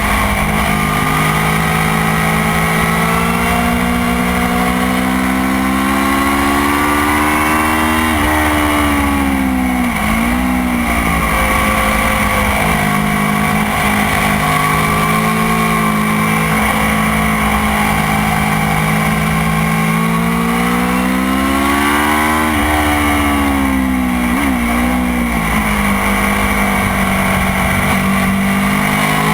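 Motorcycle engine running hard on a race track, its pitch climbing steadily under acceleration. Twice the pitch drops sharply, about eight seconds in and again around twenty-two seconds, as it brakes and downshifts with quick throttle blips, then it climbs again.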